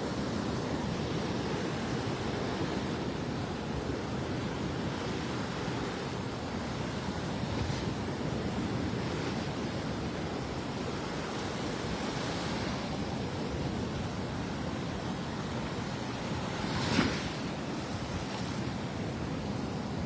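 Gulf of Mexico surf washing steadily onto the beach. One brief louder burst near the end.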